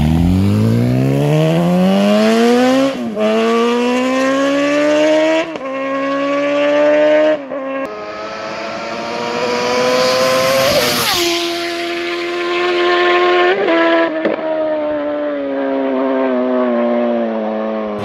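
Sport motorcycle engine accelerating hard, its pitch climbing and breaking at quick upshifts about three, five and a half and seven and a half seconds in. A bike at high revs then passes about eleven seconds in with a quick drop in pitch, and its note slowly falls as it fades away.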